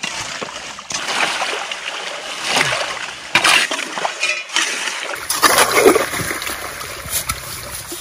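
Shovels and a garden fork digging in wet mud along a shallow ditch of running muddy water: repeated scoops, scrapes and splashes.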